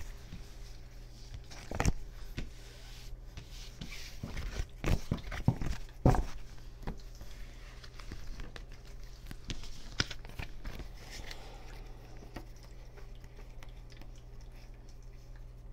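Scattered light taps, knocks and rustles of handling things on a table, loudest about five to six seconds in, over a steady low hum.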